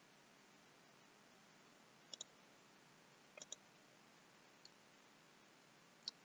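Computer mouse button clicks over a faint steady hiss: a quick double click about two seconds in, another double click about a second later, then a faint single click and a sharper one near the end.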